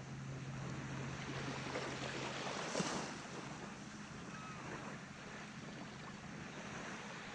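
Small waves lapping on a sandy shore, with light wind on the microphone. A faint steady low hum runs through the first two or three seconds, and there is a faint tick just after it ends.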